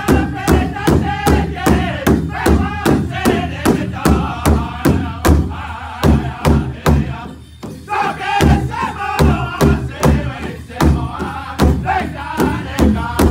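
Pow-wow drum group: several men singing loudly together while striking a large hide-covered drum in unison with padded sticks, a steady beat of about three strikes a second. The singing drops away briefly near the middle while the drumbeat carries on.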